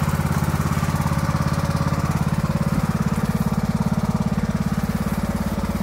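Lawn mower's small engine running steadily with a fast, even pulse.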